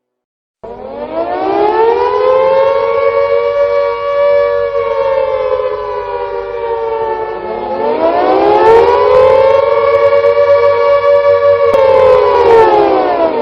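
Civil defense siren wailing. It starts abruptly a little under a second in, rises and holds, sinks about halfway through, then winds back up to hold again, and begins to fall away at the very end.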